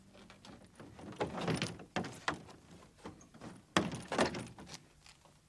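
Clicks and dull thumps of hands working the plastic bonnet of a Citroën Méhari, with the loudest knocks nearly four seconds in.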